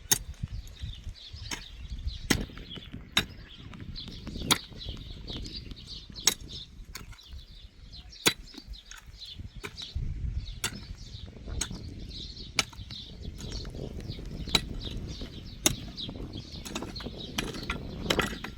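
Sharp tool strikes, one every one to two seconds at an uneven pace, from hand building work, over a steady low rumble.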